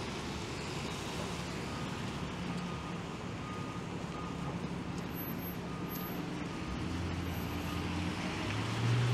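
Traffic on a wet city street: a steady wash of road noise with the low hum of vehicle engines, one engine growing louder near the end. Faint short beeps come and go several times.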